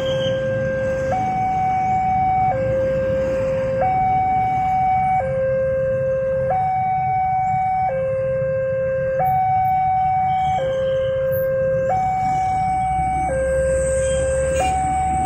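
Railway level-crossing warning alarm sounding a steady two-tone electronic signal: a lower and a higher tone alternate, each held about a second and a half. It signals that the crossing is closed and a train is approaching.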